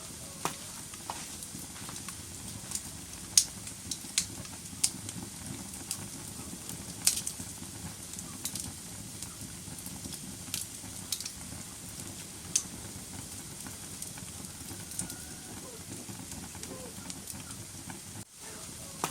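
Wood fire burning in a fireplace: a steady low rumble of flames with irregular sharp crackles and pops from the burning logs, the loudest a little over three seconds in and about seven seconds in.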